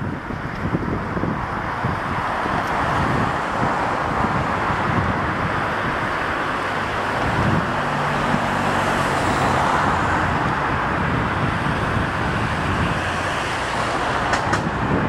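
Steady city road-traffic noise, with wind buffeting the microphone. A vehicle engine's hum stands out briefly around the middle.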